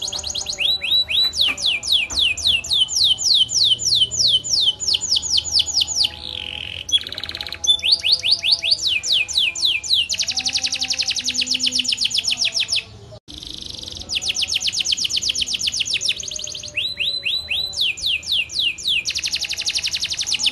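Canary singing a long continuous song of rolls: fast trills of evenly repeated high notes, each run at a different speed and pitch, with a brief break about two-thirds of the way through.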